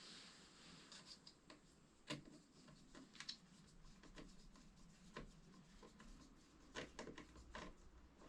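Near silence with faint, scattered clicks and rubbing, like small hand-handling noises in a small room.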